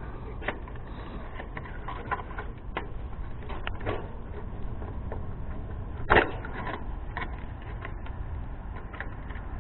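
Small clicks and rattles of push-on wire connectors being pulled off and pressed onto the terminals of a heat pump's defrost control board, with a sharper click about six seconds in, over a steady low rumble.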